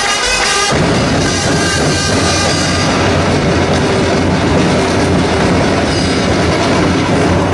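Loud festival dance music: held melody notes, then from about a second in a dense, fast drumming fills in under them and carries on.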